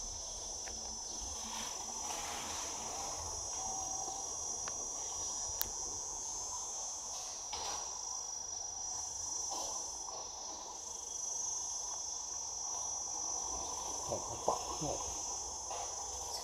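Steady, high-pitched chorus of insects buzzing in the forest, with a few faint, brief calls near the end.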